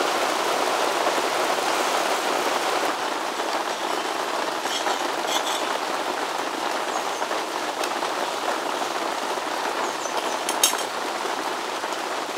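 Steady rain falling, an even hiss, with a light click about ten and a half seconds in.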